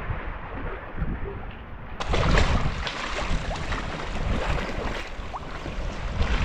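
Wind buffeting the microphone over water sloshing and splashing around a sea kayak, with the sound turning brighter and more splashy about two seconds in.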